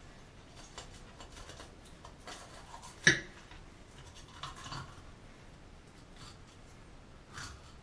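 Fillet knife cutting and scraping through a fish on a plastic cutting board: soft, scratchy strokes, with one sharp knock about three seconds in.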